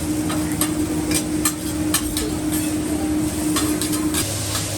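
Hibachi chef's metal spatulas clicking and clanking against the flat-top griddle many times, over food sizzling on the hot steel. A steady hum runs underneath and drops lower about four seconds in.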